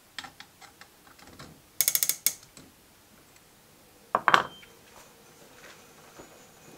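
Ratcheting clicks from the brass gear train of a skeleton clock turned by hand: scattered light ticks, a quick run of about six clicks about two seconds in, and a louder rattle of clicks a little after four seconds.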